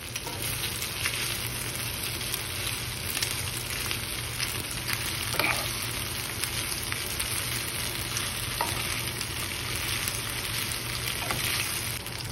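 Marinated chicken strips sizzling steadily in hot olive oil in a frying pan, with a spatula stirring and scraping through them a few times.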